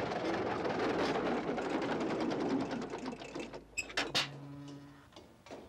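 Farm machine engine running with a fast, even clatter, fading away about three and a half seconds in; a couple of clicks and a brief low hum follow.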